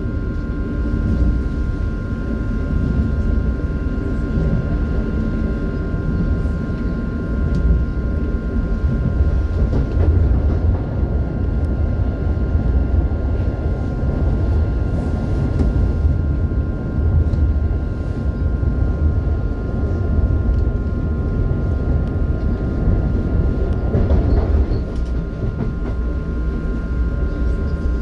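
ES2G "Lastochka" (Siemens Desiro RUS) electric train running at speed, heard from inside the car: a steady rumble of wheels on the track with a steady high whine of several tones above it. There is a brief louder rush near the end.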